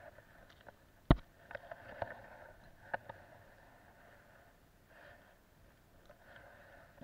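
Handling noise from a spinning rod and reel and the angler's jacket close to the microphone: soft rustling and a few clicks, the loudest a sharp click about a second in.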